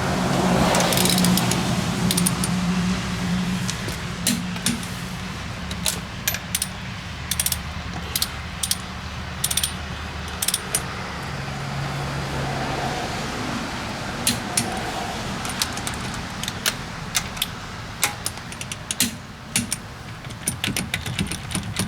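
Scattered light metallic clicks and clinks of tools being handled, over a steady low hum.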